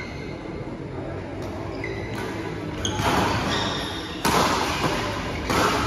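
Badminton rally: rackets striking a shuttlecock about five times, roughly a second apart, with brief shoe squeaks on the court floor.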